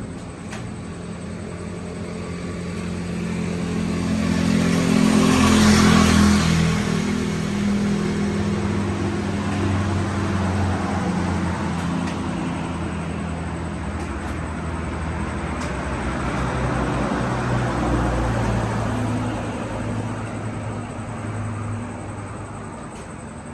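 A motor vehicle's engine running, its note stepping and changing as it goes. It swells to its loudest about six seconds in, holds steady, then eases off near the end.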